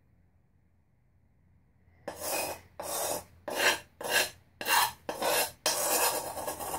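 A kitchen spoon scraping fine aluminium powder around the inside of a bowl in a run of about seven short strokes, starting about two seconds in.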